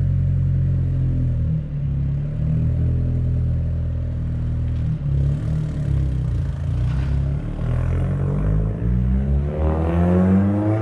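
Car engine running, its pitch shifting a few times, then revving up with a rising pitch near the end.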